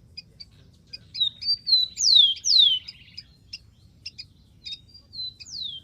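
Rufous-collared sparrow singing: a few short notes, then two loud down-slurred whistles and a brief trill, with the phrase beginning again near the end. Short high chips repeat steadily throughout.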